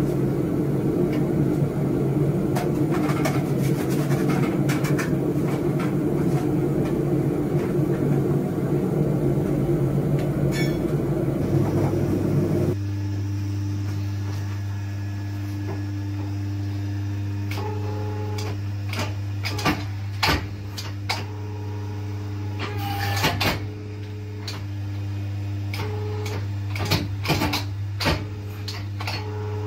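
Gas forge burner running with a steady rushing noise, then, from about thirteen seconds in, a hydraulic forging press's electric pump motor humming steadily, with scattered metallic clicks and knocks as a hot knife blade is worked in the press.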